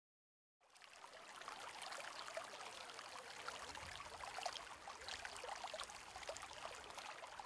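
Faint trickling, babbling water, like a small stream, fading in from silence about half a second in and then running steadily.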